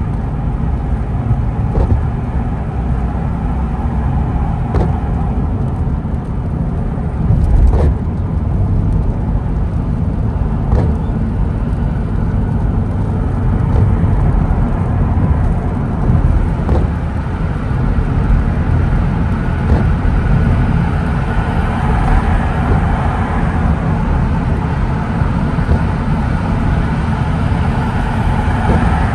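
A car driving on a wet road in the rain: a steady low rumble of road and tyre noise, with a brief sharp sound about every three seconds.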